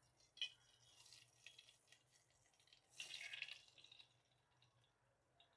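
Faint sounds of soft, semi-solid ghee sliding out of a plastic bowl into a steel pot: a light click about half a second in, then a brief soft splash-like noise about three seconds in as a lump drops into the pot.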